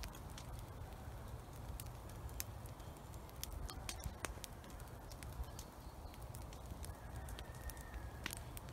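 A burning pile of brush and branches crackling, with irregular sharp pops scattered throughout.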